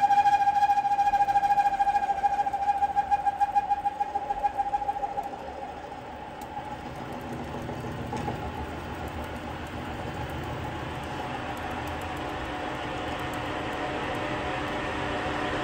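Metal lathe spinning a tie rod ball stud, with a pulsing high-pitched squeal from the tool pressed against the ball. About five seconds in the squeal stops and the lathe runs on with a steady hum.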